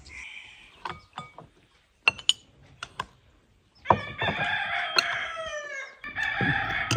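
A rooster crows twice, starting about four seconds in, each crow about two seconds long and sliding down in pitch at the end. Before that come a few light clinks of glassware on the table.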